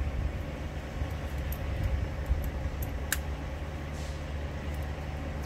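Steady low hum of an idling truck engine, with small clicks of pliers working on metal air-line fittings and one sharper click about three seconds in.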